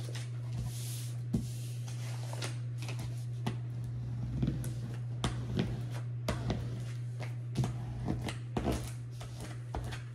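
Crackling and rustling of a vinyl decal sheet with its transfer tape as it is flipped over and smoothed by hand on a countertop: a scatter of light clicks and crinkles over a steady low hum.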